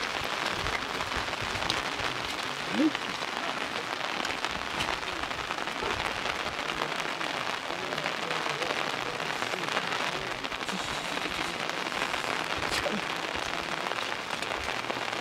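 Steady rain falling, an even hiss that holds without let-up.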